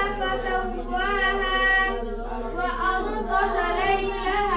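A boy's voice reciting the Quran from memory in a melodic chant, with long held notes that bend up and down and a short breath about halfway through.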